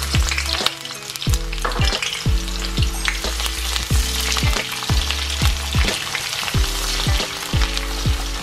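Sliced onions sizzling in hot sunflower oil in a wok, stirred with a slotted spatula, over background music with a steady beat and deep bass.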